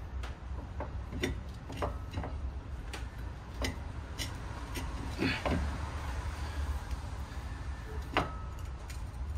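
Scattered light clicks and metallic knocks at irregular intervals, with the loudest about halfway through and near the end. They come from an Endless monoblock racing brake caliper and its hardware being handled and worked loose on its mount by hand during removal.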